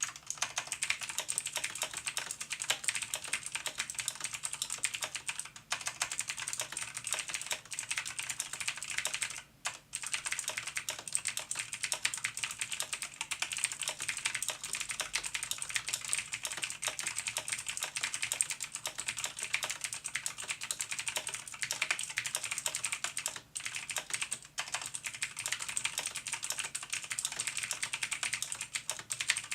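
Fast, continuous typing on a Razer BlackWidow Chroma mechanical keyboard with clicky Kailh Razer Green switches and ABS keycaps: a dense stream of sharp, high-pitched key clicks. The typing pauses briefly about ten seconds in and twice near the end.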